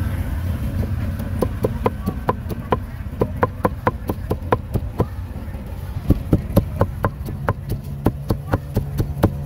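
Cleaver chopping grilled pig head meat on a thick round wooden chopping block: a rapid, even run of knocks, about three to four a second, starting about a second and a half in.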